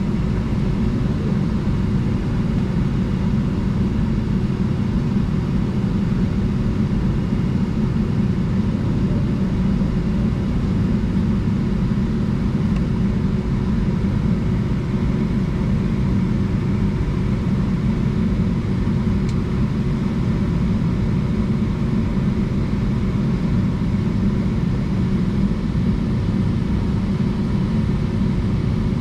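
Jet airliner cabin noise while taxiing: the engines running at low taxi power, heard from inside the cabin as a steady low rumble with a faint steady hum above it.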